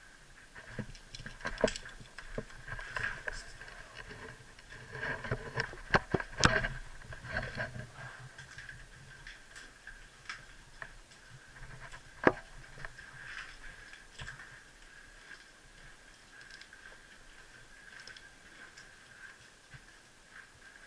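Footsteps scuffing on gritty concrete stairs with gear and pistol handling clicks, a few sharp knocks standing out, loudest about six seconds in and again about twelve seconds in.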